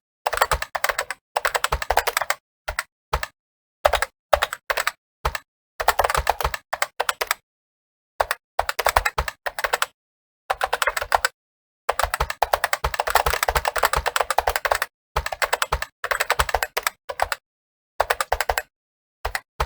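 Computer keyboard typed on rapidly, with dense runs of keystrokes in bursts lasting from half a second to about three seconds, broken by short silent pauses.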